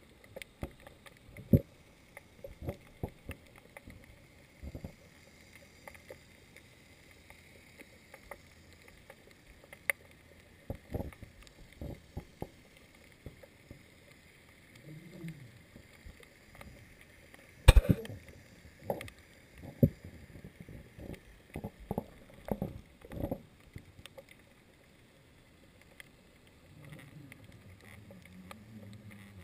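Muffled underwater sound picked up through a submerged GoPro HD Hero 2's waterproof housing: irregular dull knocks and bumps, with one sharp loud knock about 18 seconds in. Brief low wavering tones come in around 15 seconds and again near the end.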